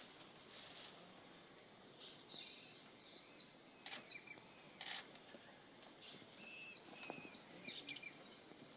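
Faint bird calls: short, gliding chirps in a few small groups, over quiet outdoor ambience with a few soft rustles.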